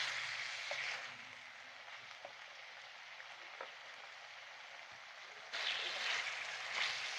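Chicken sizzling as it fries in a karahi, with a few faint pops, while the water it released cooks off. The sizzle drops quieter about a second in and comes back louder about five and a half seconds in.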